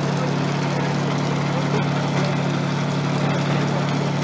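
Airfield fire crash tender's engine running steadily, a constant low hum.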